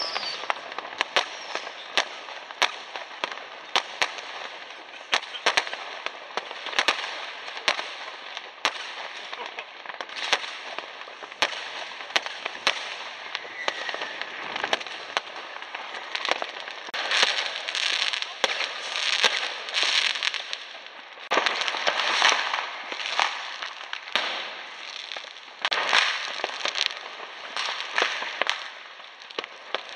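Fireworks and firecrackers going off all around: a constant run of sharp bangs, some loud and close and others faint and distant, with spells of dense crackling from a little past halfway and again near the end.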